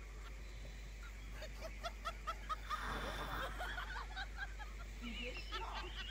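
A goose calling: a quick run of short, squeaky notes, about five a second, followed by softer mixed calls and a brief warbling note near the end.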